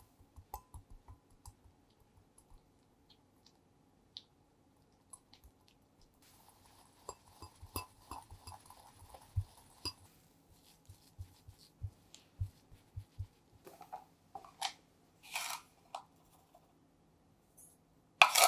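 Wire whisk mixing pancake mix and egg yolk in a glass bowl, the whisk clicking against the glass in quick runs, then a spatula scraping the thick batter around the bowl. A single sharp, louder knock comes near the end.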